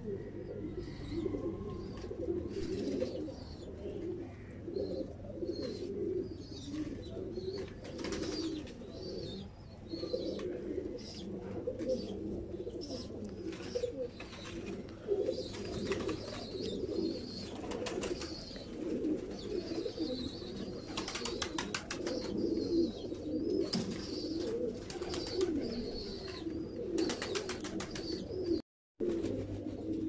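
Domestic pigeons cooing steadily in overlapping calls, with higher chirps and scattered light clicks over them. The sound cuts out briefly near the end.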